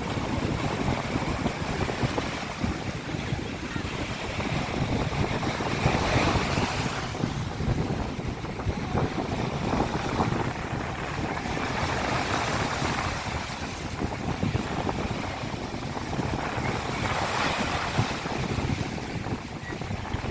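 Sea of Azov waves breaking and washing up the beach, with a surge every few seconds. Wind buffets the microphone, adding a steady low rumble.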